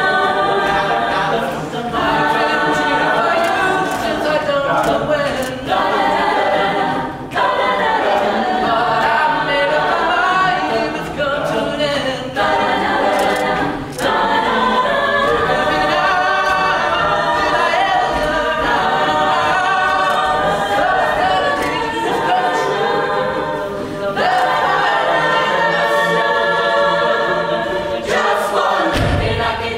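A mixed-voice a cappella group singing in close harmony, voices only with no instruments, loud and continuous with only brief pauses for breath.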